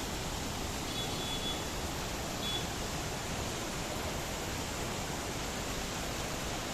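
Waterfall: a steady, even rush of falling water. Two faint, short high tones sound over it, about a second in and again a second and a half later.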